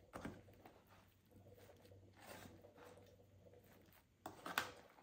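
Faint rustling and squishing of milk-soaked bread cubes being tossed by hand and with a spatula in a disposable aluminium foil pan, with a few brief louder scrapes, the loudest near the end.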